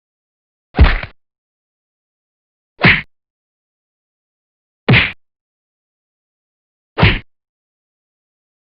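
Four separate movie-style fight punch sound effects, each a short, hard hit with a deep thud, spaced about two seconds apart with dead silence between.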